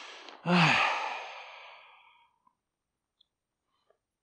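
A man's audible sigh: a breathy exhale with a brief falling voiced tone at its start, about half a second in, tailing off over about a second and a half.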